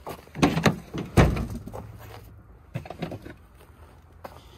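Boots crunching over snow as someone walks, with a heavier low thump about a second in and a few lighter knocks near the end.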